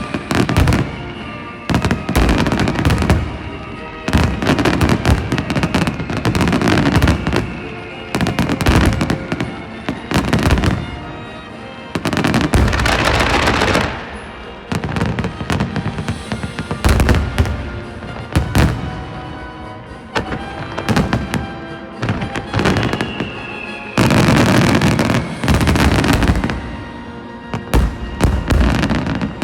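Fireworks display: shell bursts booming and crackling in rapid, overlapping succession, with music playing alongside.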